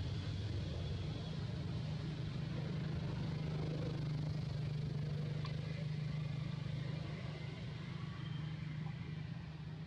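A steady low hum, with a faint high thin tone early on, that eases slightly near the end.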